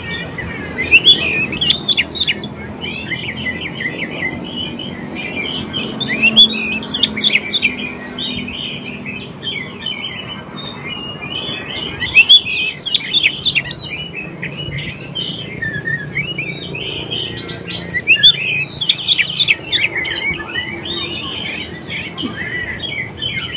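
Oriental magpie-robin singing a continuous, varied song, broken about every six seconds by a loud burst of rapid, sharp chattering notes. This is the full song kept as a lure to set other magpie-robins singing in answer.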